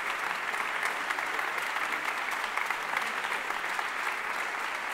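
Concert-hall audience applauding steadily: dense, even clapping from many hands.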